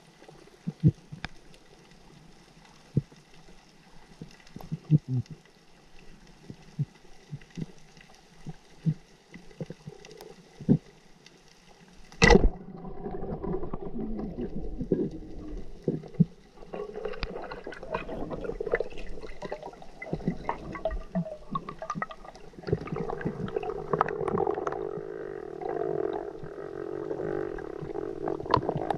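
Underwater sound from a spearfishing dive: scattered sharp clicks, then about twelve seconds in a single loud sharp crack as the speargun is fired. After the shot comes busy churning water noise with many small knocks while the speared fish is handled on the shaft.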